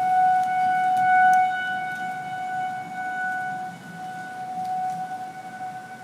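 Outdoor tornado warning siren holding one steady tone, its loudness swelling and fading. It is sounding for a damaging-hail threat rather than a tornado.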